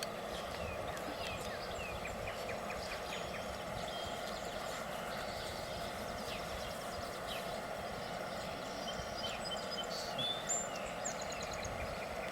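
Boxer puppies at play in a yard: scattered small clicks and rustles over a steady outdoor hum, with a few short high chirps about ten seconds in.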